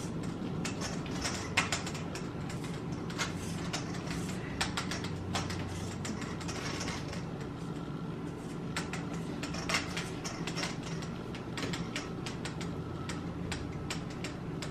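Wire whisk clicking and scraping against a stainless steel mixing bowl as carrot cake batter is beaten by hand, in a quick, irregular run of taps.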